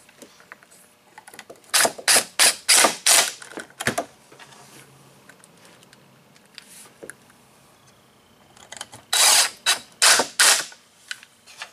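Cordless impact driver sinking 1-inch pocket screws into 1/2-inch plywood, hammering in a run of short trigger bursts about two seconds in and again in a second run near the end.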